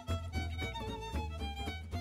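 Instrumental outro music: a lively tune with a violin-like melody over a steady bass line.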